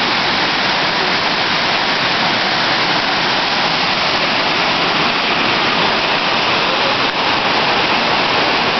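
Waterfall cascading over sloping rock, a steady, loud rush of water.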